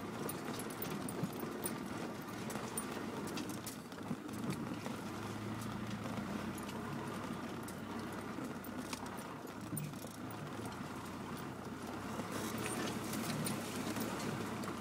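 Land Rover Discovery Mk1 driving over a rough, muddy off-road track, heard from inside the cab: the engine runs steadily under a constant clatter of small knocks and rattles from the bouncing vehicle.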